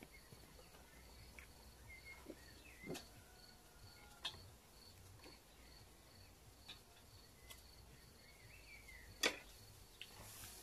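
Quiet outdoor evening ambience: a cricket chirping in a steady, even rhythm, with a few faint clicks and one sharper knock about nine seconds in.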